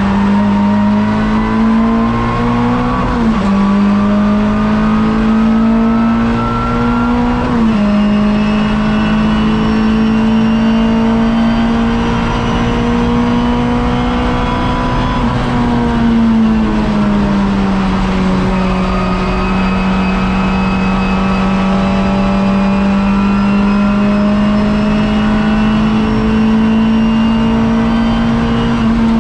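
Hot hatch race car's engine heard from inside the cabin, running hard at high revs. The revs drop sharply twice in the first eight seconds as it changes up, then hold high. The pitch sags gradually for a couple of seconds around the middle as the driver eases off, then climbs slowly again.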